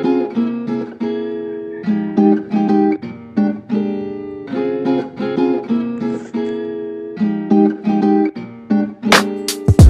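Music: acoustic guitar playing chords, each fading before the next is struck. Sharp percussive hits with deep thumps come in near the end.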